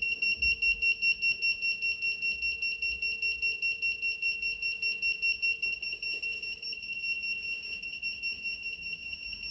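Arduino alarm buzzer sounding a steady high-pitched tone that pulses rapidly, several times a second. It has been set off by the PIR motion sensor detecting movement.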